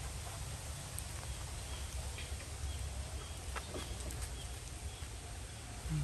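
Outdoor ambience: a steady low rumble with scattered light ticks and faint, brief bird chirps.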